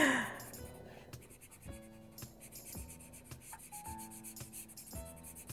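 Felt-tip Sharpie marker scratching and rubbing on paper in short strokes as it fills in a solid black area, over soft background music.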